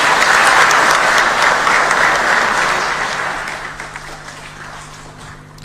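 Audience applause, loudest in the first few seconds and dying away over the last couple of seconds.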